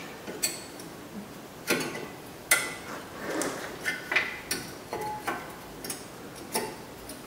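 Used disc brake pads clicking and clinking as they are seated into the front brake caliper bracket and its metal pad clips: a string of irregular light metallic clicks, a few with a short ring.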